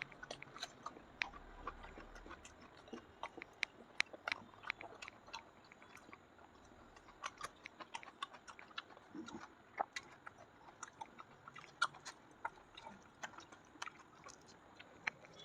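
Close-up chewing of soft kachori and curry: irregular wet mouth clicks and smacks, a few a second.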